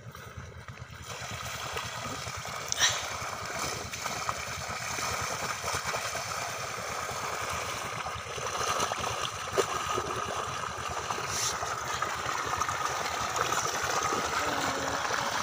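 Water pumped by a diesel pump set gushing out of the end of a 5-inch plastic pipe and splashing onto sacking laid on sand: a steady rushing splash that comes up about a second in.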